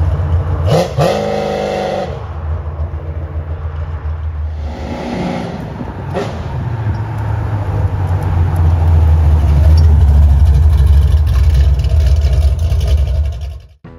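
The V8 engine of a 1979 Pontiac Firebird Trans Am running as the car is driven, with a deep, steady exhaust note. The revs rise briefly about a second in and again around five seconds. It is loudest over the last several seconds and cuts off suddenly just before the end.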